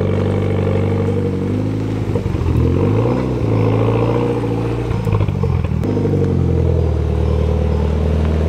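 Mitsubishi Lancer Evolution X's turbocharged four-cylinder engine running at low revs, its pitch rising and falling several times as the car moves slowly across gravel.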